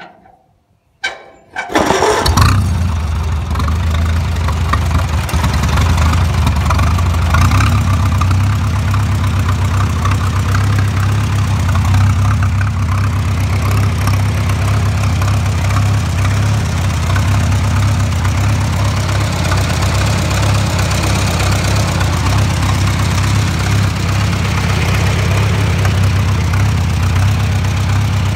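Farmall tractor's four-cylinder gasoline engine cranked and catching about two seconds in, then settling into a steady idle on freshly changed oil.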